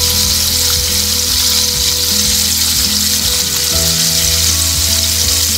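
Cornflour-coated chicken pieces deep-frying in hot oil, a steady sizzle, in their first fry of a double-fry. Background music plays underneath.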